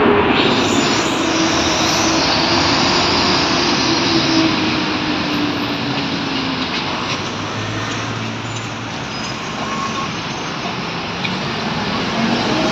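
Road traffic at a city intersection: a steady rush of engines and tyres, with one vehicle's low engine note sliding slowly down in pitch over the first several seconds as it passes.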